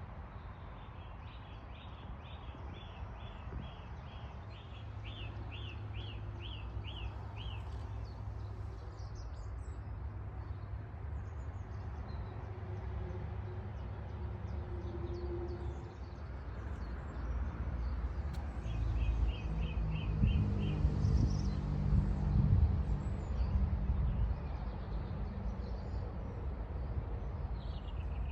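Outdoor garden ambience with birdsong: a small bird sings a fast run of repeated high notes near the start and a shorter run about two-thirds of the way in. Underneath is a steady low rumble that swells and is loudest in the second half.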